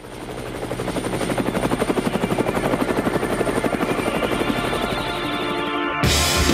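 Helicopter rotor chopping in a fast, even beat, fading in over the first two seconds and then holding steady. Music with a beat cuts in near the end.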